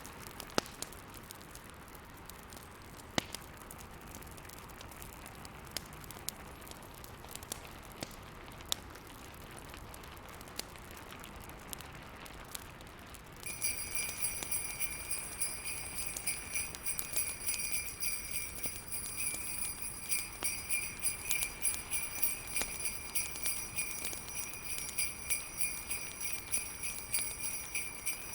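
Fireplace crackling with scattered sharp pops over a steady soft hiss. About halfway through, jingle bells come in suddenly and keep jingling in a steady shaking rhythm.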